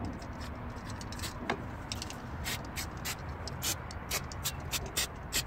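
Aerosol can of brake cleaner sprayed in a series of short hissing spurts, coming faster in the second half, over a low steady rumble.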